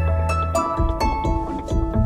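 Background music: a quick melody of plucked notes over low bass notes.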